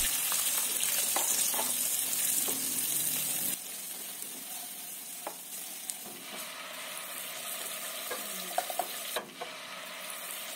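Eggs sizzling in hot oil as they are scrambled, with soft scrapes and taps from a silicone spatula against a nonstick wok. The sizzle drops to a quieter level about a third of the way through.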